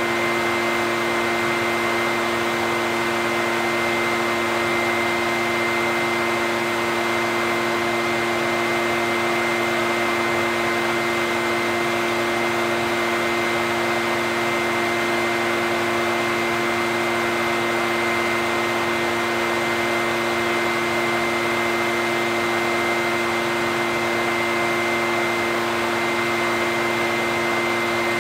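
Echo backpack leaf blower running steadily at constant throttle: a steady rush of air from the fan with a fixed engine drone and a steady high whine.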